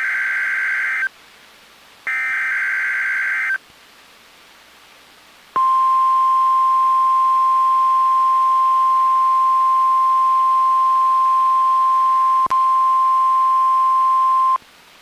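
NOAA Weather Radio SAME alert header: two harsh, buzzy bursts of digital data tones, each about a second and a half long with a short gap between. About two seconds later comes the single steady, high-pitched 1050-hertz warning alarm tone, held for about nine seconds with a momentary break shortly before it cuts off.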